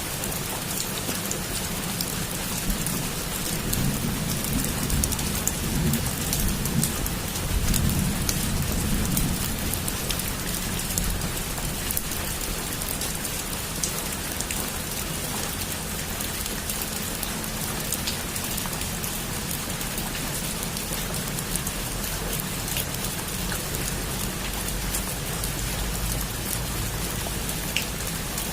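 Heavy rain falling steadily on a roof, a dense even hiss with scattered sharper drop taps. A low rumble swells and fades between about four and nine seconds in.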